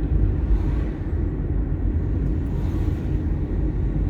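Car driving along a town road, heard from inside the cabin: a steady low rumble of engine and tyre noise.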